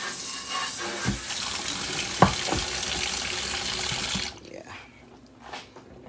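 Kitchen faucet running into a stainless steel sink, first through the pull-out sprayer and then as a plain stream, with a sharp knock about two seconds in. The water shuts off about four seconds in.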